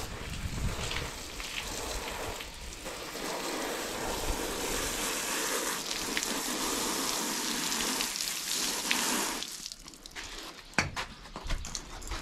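Water spraying from a garden hose nozzle onto a sponge and splashing on brick paving, a steady hiss that stops about nine and a half seconds in. A few short knocks and splashes follow.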